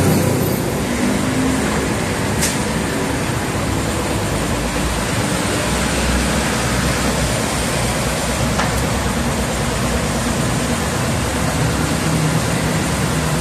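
Steady background noise of a working car wash beside a road: an even hiss and low rumble from the washing equipment and passing traffic, with two faint clicks, about two and a half and nine seconds in.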